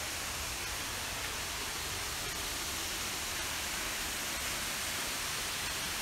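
Steady, even rushing of Munising Falls, a waterfall, with no breaks or changes.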